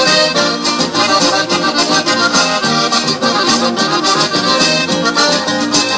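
Accordion-led instrumental passage of a Latin American song with a steady beat, played through a pair of small LED water-fountain speakers.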